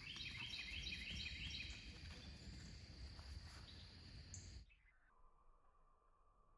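Outdoor ambience with a bird calling a short repeated chirping phrase, about three a second, over a low rumble. The sound cuts off abruptly about four and a half seconds in, leaving near silence with a faint steady tone.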